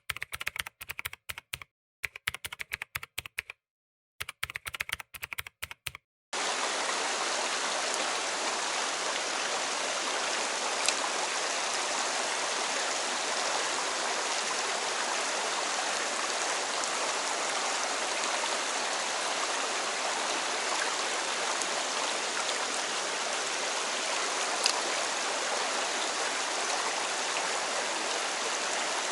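Three short runs of rapid typing-like clicks with silent gaps between them. About six seconds in, these give way to the steady rush of a mountain stream's flowing water, which carries on evenly.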